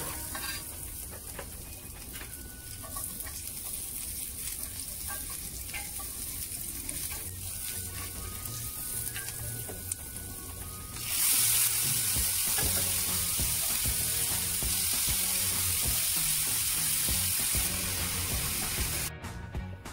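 Food sizzling in hot oil in a cast-iron frying pan as chopped onions are fried and stirred with a wooden spatula. About eleven seconds in the sizzle becomes abruptly louder, with mixed vegetables in the pan, and it cuts off suddenly near the end.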